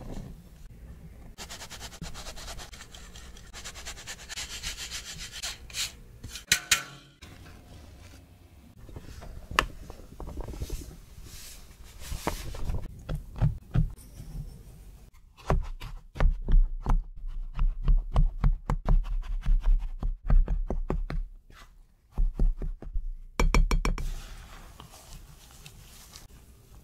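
Scone dough preparation. First a steady hiss with some taps as flour is shaken through a stainless-steel mesh sieve. Then a long run of sharp clicks and knocks with low thuds around the glass mixing bowl of flour and cubed butter, and near the end a quieter rubbing as gloved hands rub the butter into the flour.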